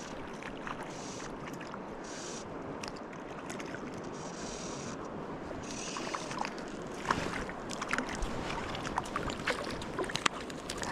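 River water rushing steadily, with irregular small splashes and sharp ticks that become more frequent in the second half.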